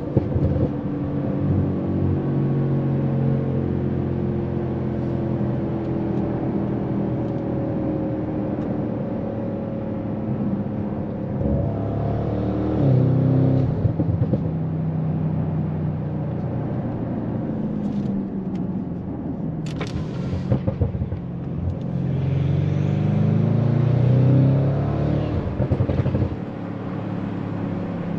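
Tuned Audi RS7 C8's twin-turbo 4.0 V8 pulling along at low speed. The engine note rises twice under throttle, about 12 and 22 seconds in, and drops back each time the throttle is lifted.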